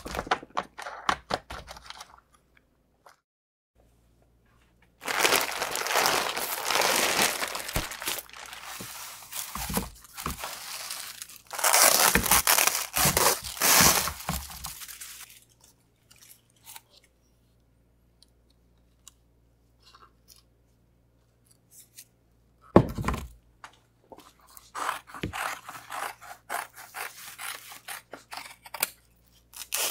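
Plastic bagging and release film being peeled off a carbon fiber part and crumpled: a loud crinkling and tearing for about ten seconds. Shorter, sharper crackles follow near the end.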